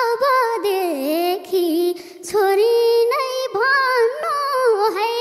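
A young girl singing a Nepali lok dohori folk line solo into a microphone, without accompaniment, her voice sliding and turning through many small ornaments in pitch.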